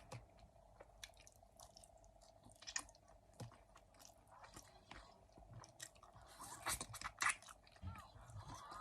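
Close-miked chewing of pork ribs: irregular wet clicks and smacks of a mouth working on meat, with a few louder bites near the middle and about three-quarters of the way through. A faint steady hum sits underneath.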